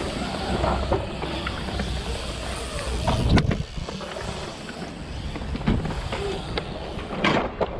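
BMX bike tyres rolling and carving across a concrete bowl with a steady low rumble, broken by a few sharp clacks, the loudest about three and a half seconds in and another near the end.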